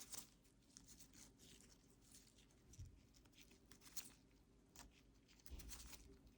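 Faint, scattered small snaps and rustles of leaves being stripped by hand from wire vine stem cuttings.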